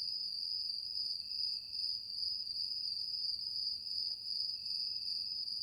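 A steady, unbroken high-pitched electronic tone, held on after the lower notes of the outro music have stopped.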